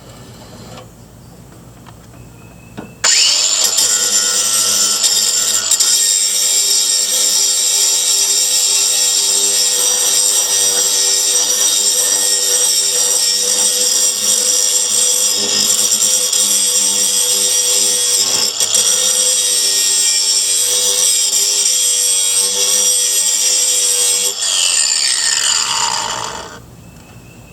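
Angle grinder with a grinding disc running against the edge of a steel mower blade for about twenty seconds, grinding back a badly rounded-over edge, then spinning down with a falling whine.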